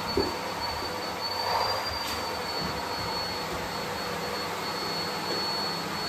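Vacuum cleaner running steadily: a hiss of rushing air with a thin high whine on top. A light knock comes just after the start, and the air noise swells briefly about a second and a half in.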